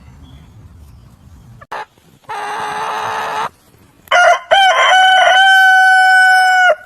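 Rooster crowing: a few broken opening notes, then one long held note that cuts off sharply near the end. A rougher, noisier call comes before it, about two seconds in.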